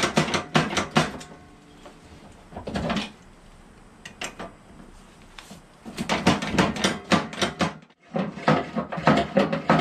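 Bursts of rapid metallic clicking and clanking as a rusted Craftsman lawn tractor mower deck spindle and pulley are worked back and forth with pliers, the shaft freeing up after soaking in penetrating oil. The longest runs are at the start and in the second half.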